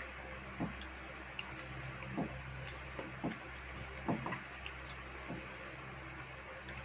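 Close-up eating sounds of rice and fish curry eaten by hand: several short wet mouth and finger sounds at irregular intervals, over a steady low hum.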